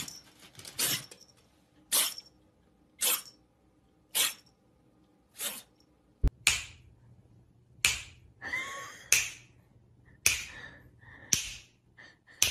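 A young tabby kitten sneezing over and over, one short sharp sneeze about every second. About halfway through comes a sharp click, then more irregular sharp bursts.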